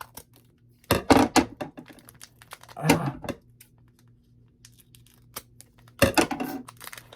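Foil Pokémon booster pack being torn open and crinkled, in three short bursts of tearing and rustling about one, three and six seconds in.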